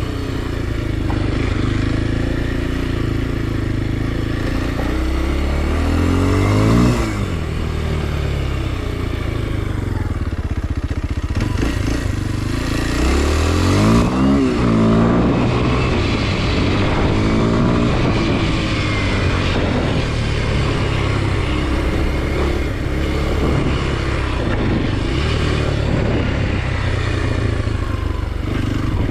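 Kawasaki KLX 230 SM's single-cylinder four-stroke engine running under way. It revs up twice, about six seconds in and again about thirteen seconds in, with each rise in pitch followed by a drop as the throttle comes off or the next gear goes in.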